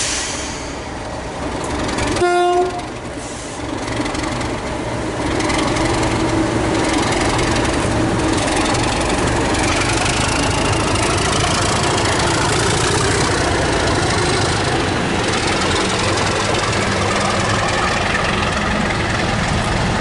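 English Electric-engined Class 37 diesel locomotive giving one short horn blast about two seconds in, then its engine running loudly as it passes, with a high whistling pitch rising through the middle.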